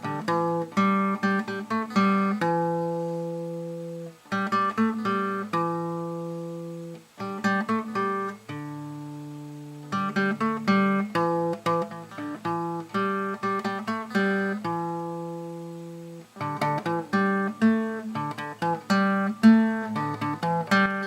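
Acoustic guitar music: phrases of plucked notes that ring out and fade, with short pauses between phrases.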